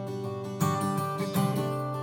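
Martin OM-28 Reimagined steel-string acoustic guitar being played: ringing chords, with new strokes across the strings about half a second in and again around a second and a half in.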